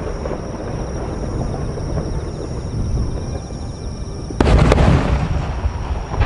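Two large Japanese aerial firework shells bursting almost together about four and a half seconds in: a pair of deep booms a fraction of a second apart that die away over about a second. A steady low rumble lies under them throughout.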